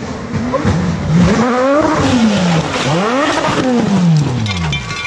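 Rally car engine revving hard, its pitch climbing then falling twice as the throttle is opened and lifted.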